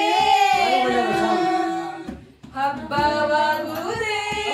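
A woman singing a song unaccompanied, holding long notes, with a short pause for breath about two seconds in before she carries on.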